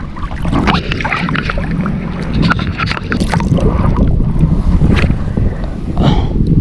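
Wind buffeting the microphone over sea water sloshing around a person wading chest-deep, with many brief splashes and clicks scattered through.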